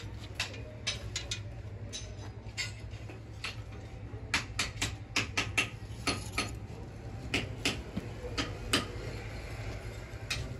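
Irregular sharp metal clanks and clinks of iron rods, a crucible shank and metal moulds being handled at a pit furnace as a crucible of molten aluminium is lifted out, most frequent in the middle, over a steady low hum.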